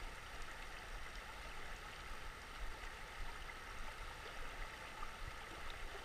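Steady rush of a shallow river flowing over riffles.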